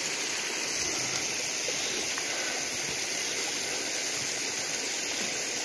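Steady rushing of a mountain creek, an even hiss.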